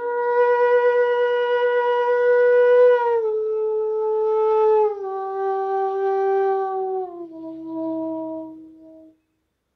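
Bansuri (bamboo transverse flute) playing a slow descending phrase of four long held notes, each sliding smoothly down into the next (meend) so the tone never breaks. This is the slow vilambit style of playing. The first note is held about three seconds, and the last note fades away.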